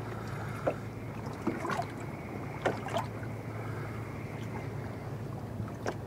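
Boat motor running at idle, a steady low hum, under the hiss of wind and water. A few short sharp clicks or taps stand out over it, two around the middle and one near the end.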